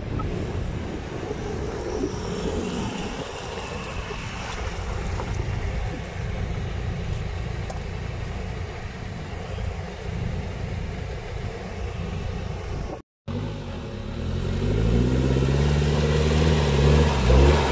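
Off-road 4x4's engine: a low, noisy rumble at first. After a brief dropout about thirteen seconds in, it revs up and down and grows louder toward the end.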